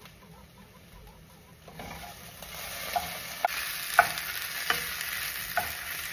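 Potatoes and okra sizzling in oil in a pan, stirred with a wooden spatula. The sizzling grows louder about two seconds in, and the spatula knocks sharply against the pan about five times in the second half.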